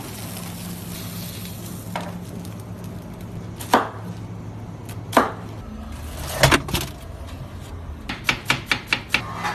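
Kitchen knife chopping through pineapple onto a plastic cutting board: single sharp knocks a second or two apart, then a quick run of about seven strokes near the end as the pineapple is sliced into rings. A steady low hum runs underneath.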